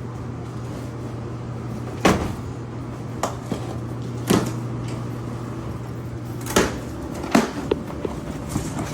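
About six sharp knocks and clunks, the loudest about two seconds in, over a steady low hum.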